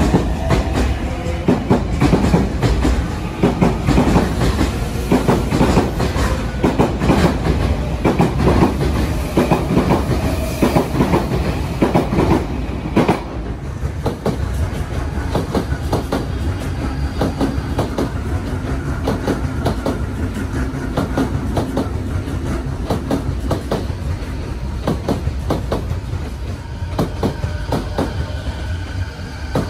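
Odakyu Line commuter electric trains running past, wheels clattering over rail joints and points. About 13 seconds in the sound drops suddenly to a second train's quieter, steadier clacking as it runs over a set of points.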